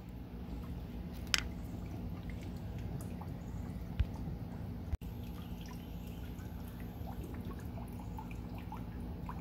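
Flush water dripping from a Yamaha outboard's cooling system as it drains, scattered drops falling irregularly with two louder ticks, about one and four seconds in, over a steady low hum.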